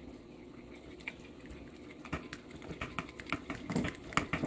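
Wooden spoon stirring a thick mayonnaise dressing in a glass bowl, making scattered light clicks and scrapes against the glass that come faster in the second half. A faint steady hum sits underneath.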